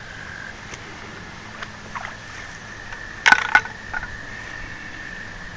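A frog trilling on one steady high note in the background. Just past the middle come two sharp clacks, a quarter second apart, and these are the loudest sounds.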